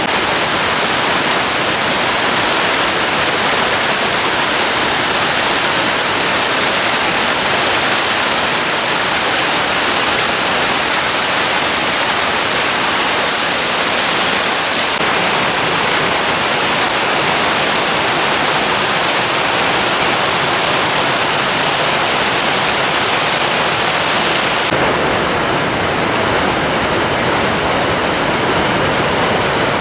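Fast mountain brook cascading over rocks: a loud, steady rush of water. About 25 seconds in, it changes to a duller, deeper rush.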